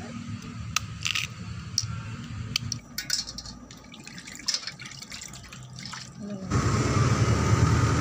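Water dripping and splashing in a metal basin as hands cut and squeeze soft food in it, with sharp clicks of a knife against the metal. About six and a half seconds in, the sound changes suddenly to the louder, steady rumble of a moving vehicle.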